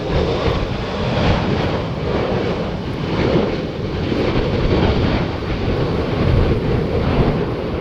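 Jet noise from an Airbus A380's four turbofan engines on landing approach: a steady, even rumble with no distinct tones.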